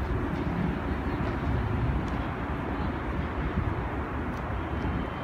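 Jet ski engine running at speed some way off, heard as a steady rumble with no clear pitch and little change in level.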